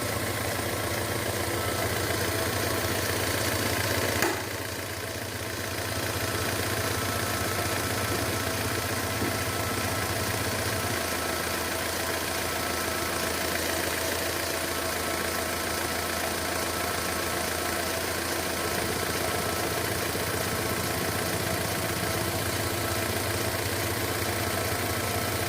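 Car engine idling steadily. About four seconds in there is a brief click and the sound dips for a moment before settling back to an even idle.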